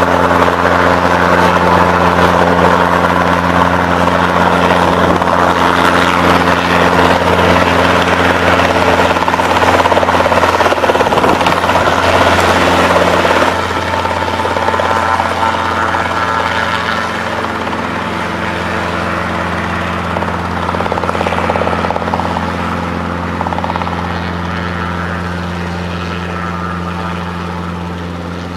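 Robinson R22 Beta helicopter's four-cylinder Lycoming piston engine and rotors running with a steady drone. About halfway through it becomes a little quieter, then fades gradually.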